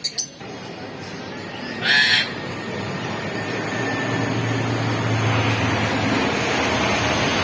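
A crow gives one short, harsh caw about two seconds in. Under it, a steady background noise swells gradually.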